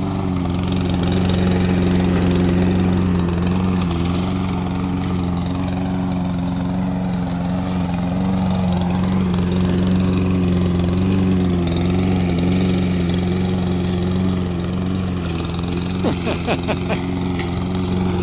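Single-cylinder Briggs & Stratton OHV engine of a walk-behind lawn mower running steadily under load as it cuts through heavy growth. Its pitch wavers slightly as the load changes.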